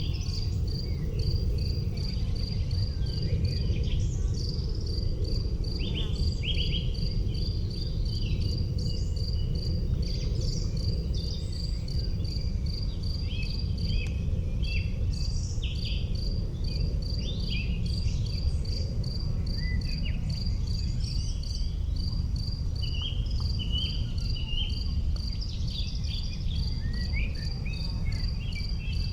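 An insect chirping in an even, unbroken rhythm of short high pulses, about three to four a second, with scattered short bird calls and a steady low rumble underneath.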